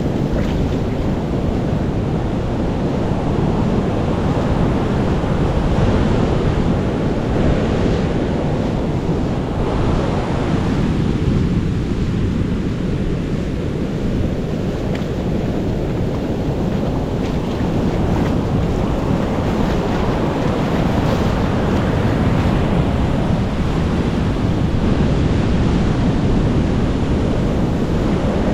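Ocean waves breaking and washing on a beach, a steady surf noise, with wind rumbling on the microphone.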